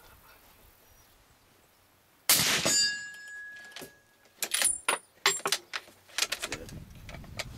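A single suppressed shot from a 300 Win Mag bolt-action rifle fitted with a 6-inch suppressor, about two seconds in, with a brief ringing tail; it sounds a little cracky. A couple of seconds later comes a quick series of sharp metallic clicks as the bolt is worked and the spent case ejected.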